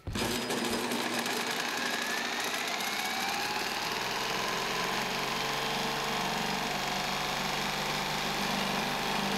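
Cordless drill on the flywheel nut spinning over a push mower's small engine, a steady mechanical whir with a faint tone rising about two seconds in. The engine had seized with honey used as its oil, and its valves are stuck open.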